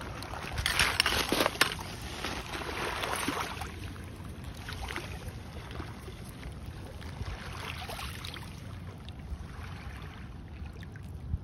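Small waves of Lake Huron lapping and washing over shoreline pebbles in shallow water, with a louder wash in the first two seconds.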